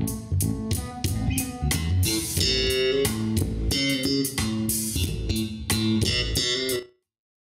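Music with guitar, bass guitar and a steady drum beat, played back through a hi-fi floor-standing speaker and a REL subwoofer. It cuts off abruptly about seven seconds in.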